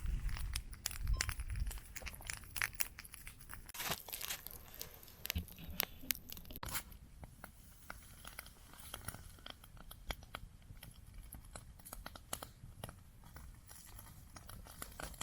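Campfire crackling: burning wood giving many small, irregular pops and crackles, with a low rumble in the first couple of seconds.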